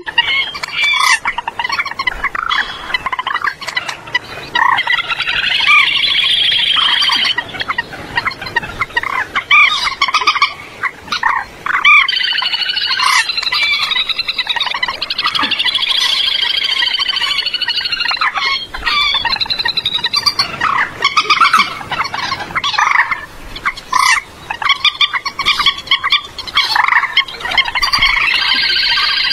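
Common moorhen calling over and over, in long runs with short breaks. It is a lure recording of moorhen calls played to draw the birds into nets at night.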